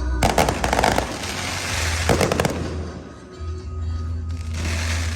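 Fireworks exploding in rapid crackling clusters: one flurry of sharp pops about a quarter second in and another about two seconds in.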